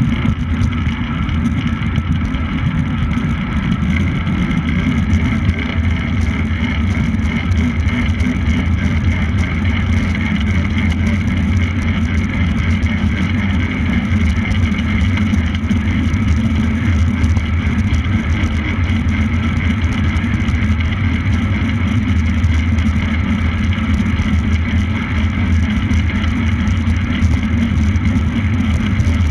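Steady, loud rushing of wind and rolling tyres on a camera moving at speed behind a track bicycle, with a constant low hum and no breaks.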